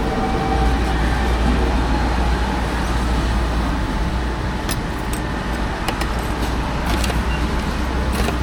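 Steady street noise with a low traffic rumble, and a few light clicks and taps in the second half.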